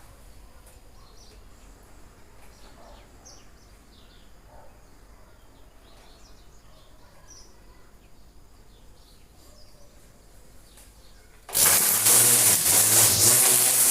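Faint outdoor ambience with scattered short bird chirps. About eleven seconds in, a much louder sound with a wavering pitch cuts in abruptly.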